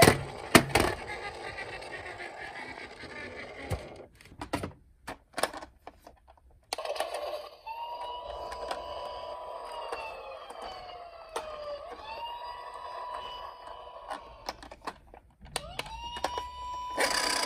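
A toy minicar's electronic siren wailing, climbing to a held high tone and sliding down again, over and over, after a run of sharp plastic clicks and knocks.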